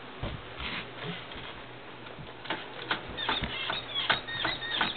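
Faint clicks and knocks of hand-worked metal parts on a Kawasaki KX250 dirt bike. In the second half these come closer together, mixed with short squeaks.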